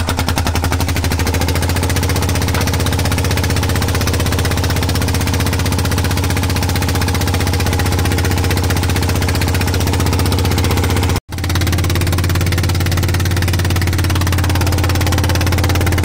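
A fishing boat's engine running steadily with a loud, fast, even chugging beat. The sound drops out for an instant about eleven seconds in, then carries on.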